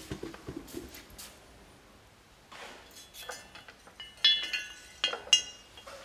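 Porcelain clinking: a few light ringing clinks, the loudest about four and five seconds in.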